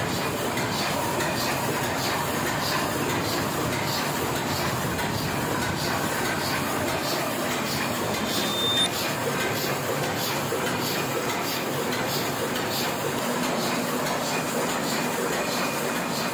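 Small sheet-fed offset printing press running, a steady rhythmic mechanical clatter, with a brief high squeak about halfway through.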